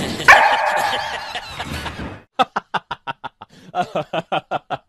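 A harsh animal snarl from a tiger cub and a puppy squaring off, fading over the first two seconds. Then a rapid run of short 'ha-ha' laughter bursts, about five or six a second, laid over a grimacing lion.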